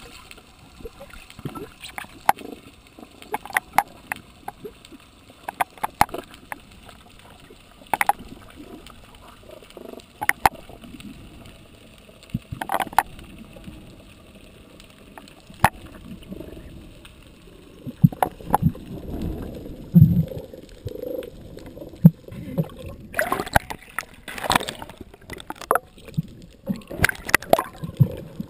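Underwater sound picked up by a camera housing during a freedive: a muffled low rumble of water with scattered sharp clicks and low bubbling gurgles. In the last few seconds it turns to louder, splashy water noise as the diver nears the surface.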